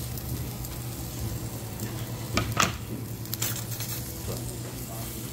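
Pork heart skewers sizzling on a hot charcoal-fired grill plate, over a steady low hum. A few sharp clicks come about halfway through.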